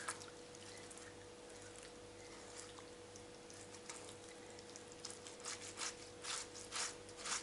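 Peeled ripe tomato grated on a flat metal hand grater, giving wet rasping strokes. It is faint with only a stroke or two at first, then about five quick strokes, roughly two a second, in the last two seconds.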